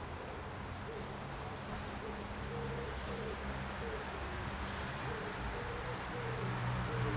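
A pigeon cooing in a repeated rhythmic phrase, over a steady low hum.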